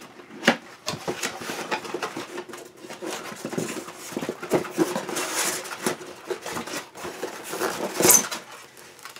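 Cardboard collector's model box being opened by hand: packaging rustling and scraping, with a run of sharp clicks and knocks, the loudest about eight seconds in.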